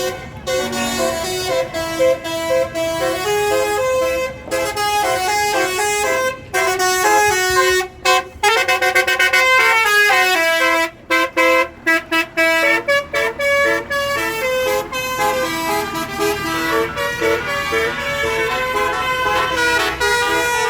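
Telolet musical bus horn playing a melody: a series of horn notes that step up and down in pitch, with a choppy run of short notes and brief gaps in the middle.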